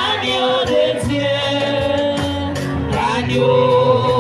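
Music: a sung devotional hymn with instrumental backing and a regular percussive beat.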